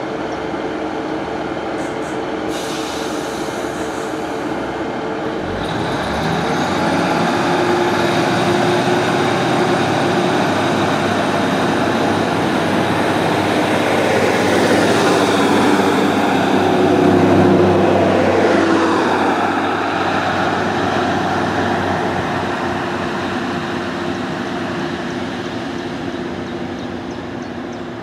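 Northern diesel multiple unit pulling away from the platform: its engines run steadily, then grow louder with some rising and falling engine tones as it accelerates, loudest about two-thirds of the way in, then fade as it recedes down the line.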